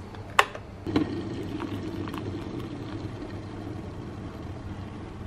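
Hot water poured from a kettle into a ceramic cup over a peppermint tea bag, a steady stream filling the cup. The pour starts about a second in, after a sharp click.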